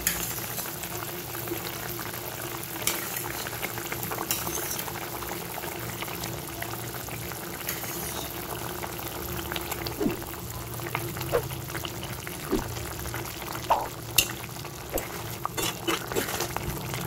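Thick tomato-and-spice curry gravy bubbling at a boil in a kadai as fried pomfret pieces are added, with scattered light clicks and taps.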